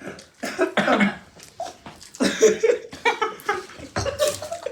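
Repeated coughing from a person eating fried rice loaded with hot chillies, the spice catching in the throat.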